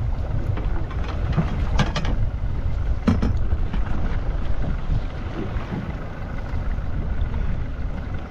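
Wind rumbling on the microphone over the sound of the sea against a small fishing boat, with a couple of brief sharp clicks or knocks about two and three seconds in.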